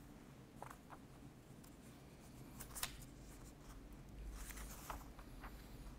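Sheets of paper being handled and shuffled: soft, scattered rustles and crinkles, faint against quiet room tone, with a sharper crackle about three seconds in and a busier patch of rustling a little later.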